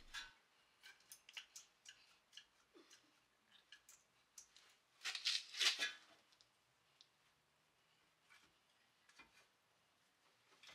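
Light metallic clicks and clinks of hand tools and brake parts being handled during a rear brake pad and rotor job. Scattered taps come throughout, with a louder run of rapid clicking about five seconds in.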